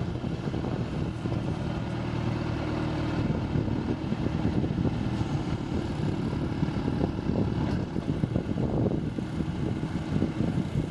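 John Deere 410D backhoe's diesel engine running steadily, its pitch holding fairly constant.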